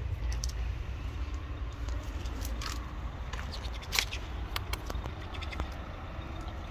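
Street ambience: a steady low rumble of road traffic, with scattered light clicks and one sharper click about four seconds in.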